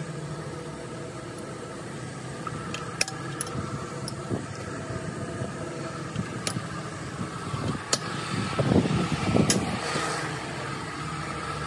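A few sharp metallic clicks and clinks as parts are handled inside an open tractor gearbox housing, over a steady mechanical hum. There is a louder stretch of clatter about nine seconds in.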